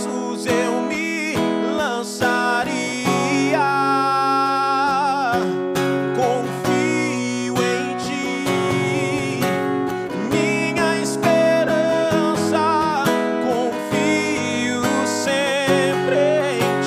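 Strummed acoustic guitar accompanying a male voice singing a slow worship song, with long held notes sung with vibrato.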